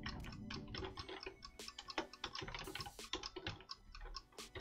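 Computer keyboard typing: a quick, uneven run of faint keystroke clicks.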